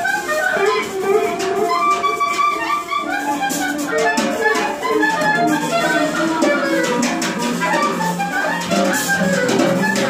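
Live jazz-like band music: a wind instrument playing busy lines over electric guitar and a drum kit with frequent cymbal strokes. Low held notes come in about halfway through.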